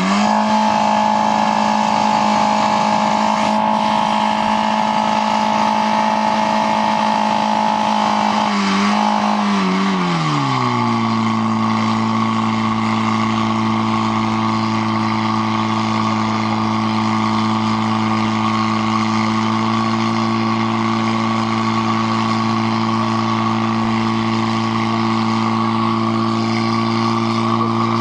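Portable fire pump's petrol engine running at high revs, then dropping about ten seconds in to a lower steady speed that holds while the pump delivers water to the attack hoses.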